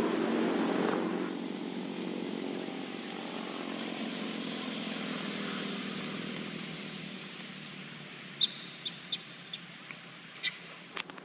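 Outdoor background noise: a steady hiss with a low rumble that fades out after about a second. Near the end comes a quick run of sharp clicks or chirps, about six of them in three seconds.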